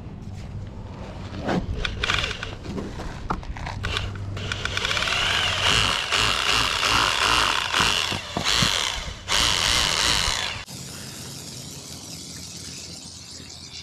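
Handheld power tool running in a long spell of about five seconds, then a short second burst that cuts off abruptly about eleven seconds in. A few knocks come before it.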